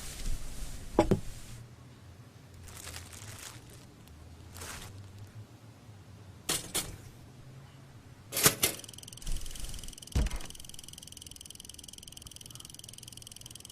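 Cartoon sound effects: a string of short swishes and hits a second or two apart, then, about two-thirds of the way in, a steady high-pitched ringing tone that keeps going.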